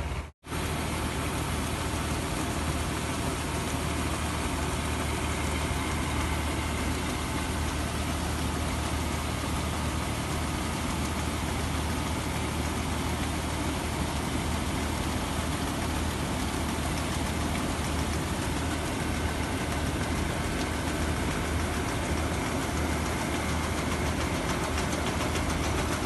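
Combine harvester running steadily at working speed: its diesel engine and threshing machinery give a continuous loud mechanical din over a steady low hum. The sound cuts out for a split second just after the start.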